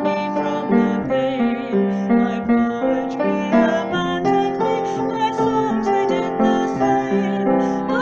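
Piano-sounding keyboard music: a gentle melody over chords, the notes changing every half second or so.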